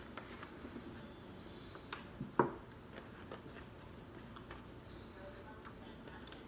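Quiet handling of a plastic gallon water jug and its cap, with scattered light clicks and one sharp click about two and a half seconds in.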